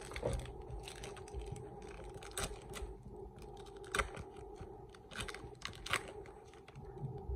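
Foil trading-card pack crinkling and tearing as it is peeled open by hand: a run of irregular crackles and snaps, the sharpest about four and six seconds in.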